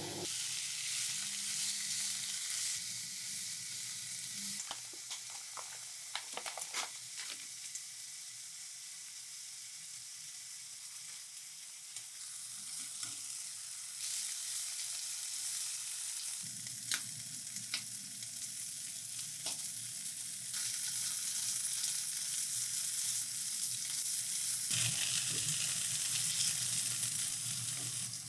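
Food sizzling as it fries in a pan, with a few light clicks of a utensil against it.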